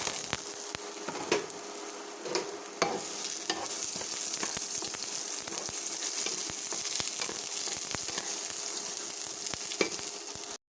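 Garlic and onions sizzling as they sauté in a pan, stirred with a utensil that clicks and scrapes against it. The sizzling gets louder about three seconds in and cuts off suddenly near the end.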